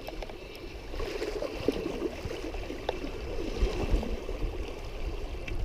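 Shallow stream water running and gurgling, with scattered small splashes and clicks over a low rumble.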